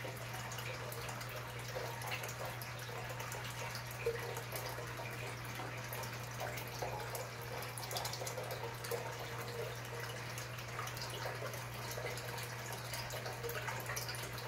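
Pumped return water pouring from a black plastic pipe outlet into a partly filled glass aquarium tank: a steady splashing trickle of falling water, with a low steady hum underneath.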